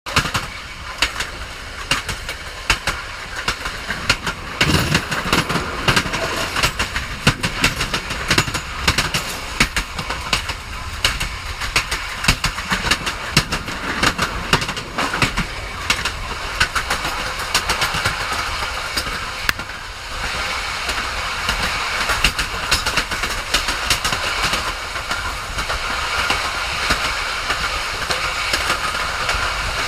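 Train running on the rails: wheels clacking and knocking irregularly and rapidly over a steady high rushing noise.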